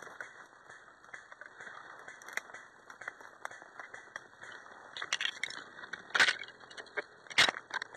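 Footsteps crunching through dry fallen leaves and twigs, with small rattles and clicks of carried gear. Two louder sharp cracks come about six and seven and a half seconds in.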